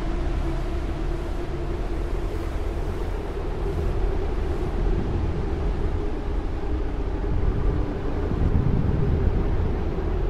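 Steady rushing wind with a deep low rumble, swelling briefly about eight seconds in.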